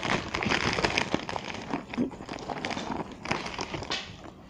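Rustling, rubbing and small clicks of things being handled close to the phone's microphone.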